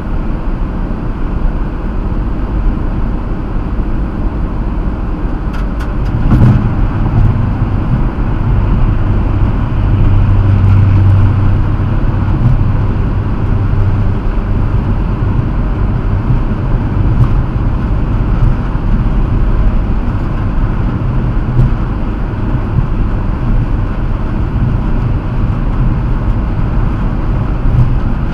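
Road noise inside a moving car at highway speed: a steady low drone of tyres and engine, a little louder from about six seconds in.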